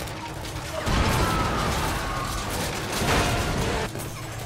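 Movie gunfight sound effects: gunfire and crashing impacts over a tense music score, with loud hits about a second in and again about three seconds in.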